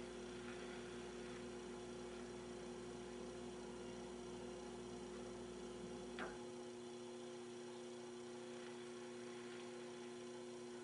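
Philco 39-30 tube radio tuned between shortwave stations, giving only a faint steady hum with light hiss. A faint click about six seconds in, after which the deepest part of the hum drops away.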